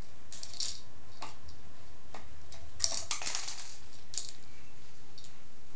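Light clicks and clatter of dry treats and hard plastic as cats paw at a plastic treat-puzzle tower, busiest about three seconds in, over a low steady hum.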